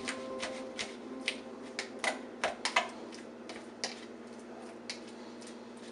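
Utensil tapping and clicking against a plastic measuring cup while mashing bananas: irregular sharp clicks, about two or three a second, with a cluster of louder ones two to three seconds in.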